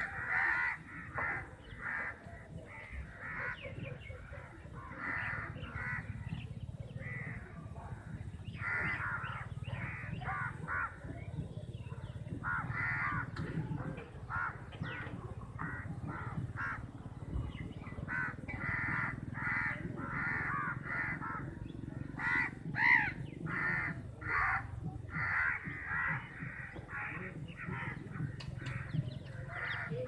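A flock of crows cawing, many harsh calls repeating and overlapping one another, with a louder burst of calls about two-thirds of the way through, over a steady low rumble.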